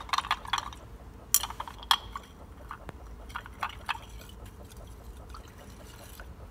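Liquid mixture being stirred in a glass beaker on a magnetic stirrer: swishing liquid and light glass clicks, sharpest in the first two seconds, then fading to faint ticks over a low hum.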